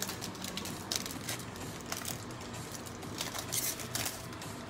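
Foil wrapper of a Prizm basketball card pack crinkling as gloved hands tear it open and slide the cards out: a few short crackles about a second in and again near the end.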